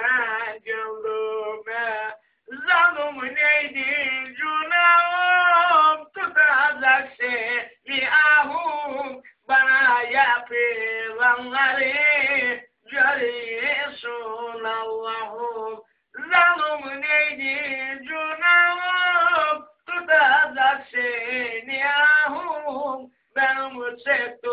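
A man singing an unaccompanied Black Sea atma türkü folk song. The long phrases waver in pitch and are separated by brief silent pauses.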